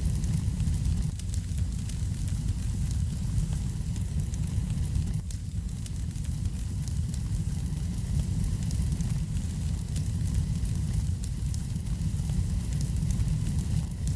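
Wood fire burning in a fireplace: steady low rumble of the flames with many small, scattered crackles and pops throughout.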